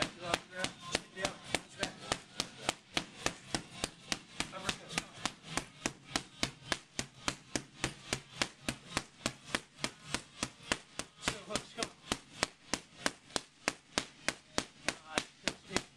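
Boxing gloves striking focus mitts in a fast, steady rhythm, about three sharp smacks a second.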